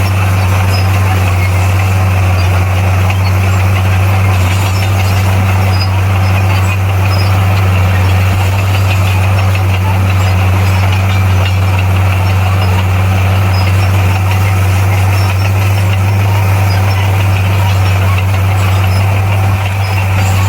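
Heavy earthmoving machine's engine running steadily at constant speed, a loud, unchanging low drone.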